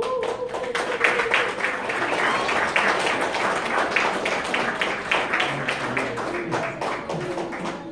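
Church congregation applauding: a dense, irregular clapping that builds about a second in and keeps on. A single held tone sounds under it for the first two seconds.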